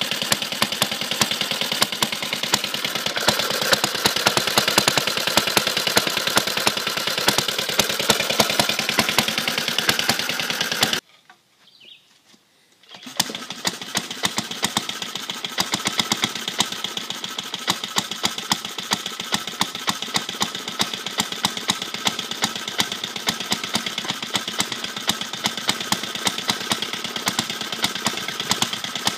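Small early Briggs & Stratton single-cylinder, air-cooled engine running steadily, its exhaust firing in fast, even pops. The sound drops out for about two seconds near the middle, then an engine of the same kind is heard running again with the same even firing.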